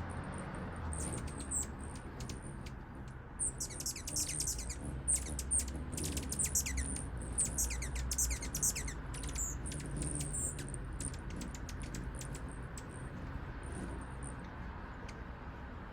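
Hummingbirds chirping: scattered high, thin chirps, with a quick run of rapid falling chirps in the middle, over a low steady rumble.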